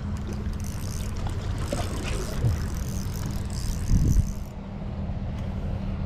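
Steady low engine hum under wind and water noise, with a dull thump about four seconds in.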